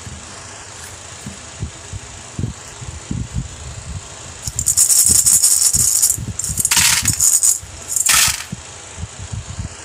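Hard candy-coated sweets poured from a plastic bowl into a plastic toy bathtub, rattling and clattering against the plastic in three loud pours from about halfway through. Before and between the pours come light knocks of the plastic tub and bowl being handled.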